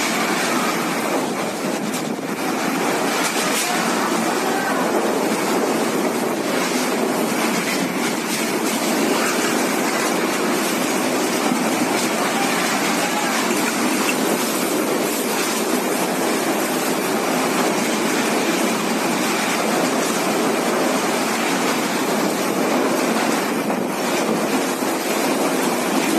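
Cyclone wind and driving rain: a loud, steady rushing noise that swells and eases a little.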